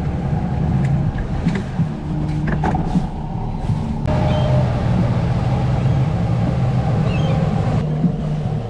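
Fishing boat's engine running steadily, its low hum shifting in pitch now and then.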